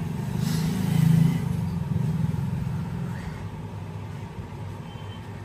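A motor vehicle's engine rumbles past, swelling to its loudest about a second in and then slowly fading.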